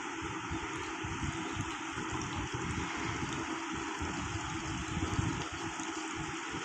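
Petrol pouring steadily from a large plastic bottle through the filler-neck strainer into a Royal Enfield Bullet motorcycle's fuel tank.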